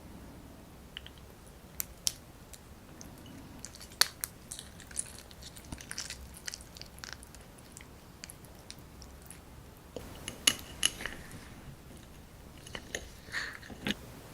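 Close-miked eating of soy-sauce-marinated raw crab: biting and chewing, with sharp crunches and wet clicks coming in clusters, a few seconds apart.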